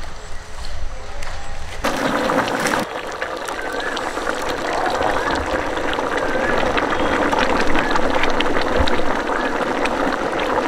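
Thick fish gravy with chunks of sailfish in it bubbling at a steady boil in a large pot, a dense patter of popping bubbles that sets in about two seconds in.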